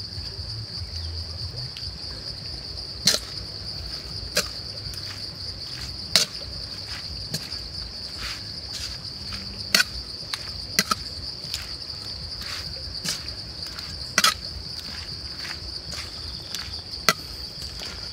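Steel ladle knocking and scraping in a wok while stir-frying shredded banana blossom and cow stomach, with sharp clinks at irregular intervals. Insects chirr steadily at a high pitch underneath.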